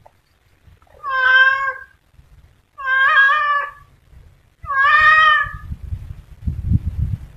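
Tabby cat meowing three times, each a drawn-out call of about a second, with a low rumbling noise under the last call and after it.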